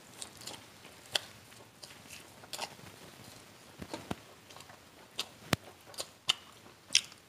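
Crisp fried coating of a chicken leg piece crackling and crunching as it is torn apart by hand, in irregular sharp clicks and crackles that come closer together in the second half.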